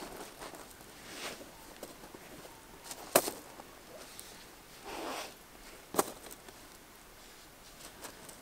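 Rustling and scraping as leather hiking boots are pulled off and Chaco strap sandals put on, with the sandals' webbing straps sliding. Two sharp clicks stand out, about three seconds in and again at six.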